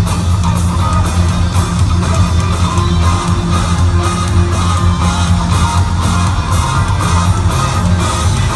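Rock band playing a live jam with electric guitar over a heavy, steady bass line, loud and boomy as heard from high up in an arena's stands.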